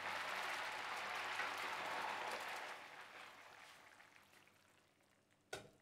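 Food sizzling in a hot pan, a steady hiss that fades away over the second half, followed by a single sharp knock near the end.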